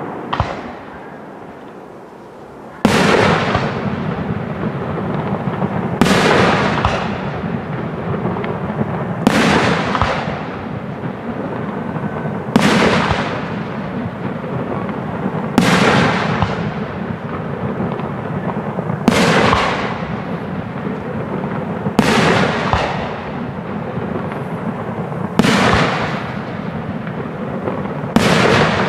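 Aerial firework shells bursting in a regular series: after a short lull near the start, nine loud bangs come about three seconds apart. Each bang trails off in echo.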